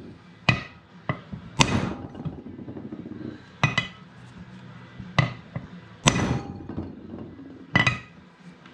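Metal-on-metal hammer blows on a socket used as a driver, seating a main bearing's outer race into an ATV crankcase half: about seven sharp strikes at uneven intervals, each with a short ring.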